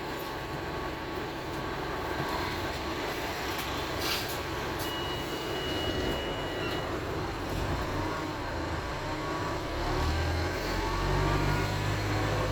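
A Wright StreetDeck Ultroliner double-decker bus on the move, heard from inside: its Mercedes-Benz OM934 four-cylinder diesel running under road and body noise. A brief thin steady whine comes a few seconds in, and the engine note rises and grows heavier in the last few seconds.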